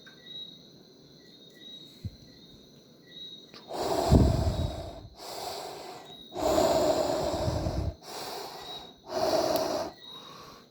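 Mouth-made spaceship sound effects for a LEGO TIE Bomber: a string of about five breathy, hissing blasts, each about a second long, starting about four seconds in after a quiet start.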